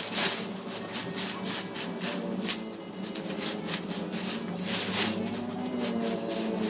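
Dry leaves crackling and a black plastic trash bag rustling as gloved hands pack the leaves into it, in a quick, irregular run of crunches.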